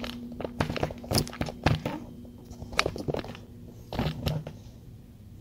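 Scattered clicks, knocks and light crackles of handling noise as a camera is picked up, moved and set down on a work table.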